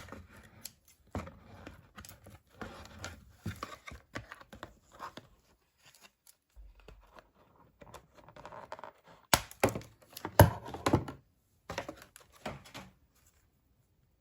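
Doll packaging being handled and opened by hand: tearing, crinkling and rustling with scattered light knocks, and a few sharper knocks about ten seconds in.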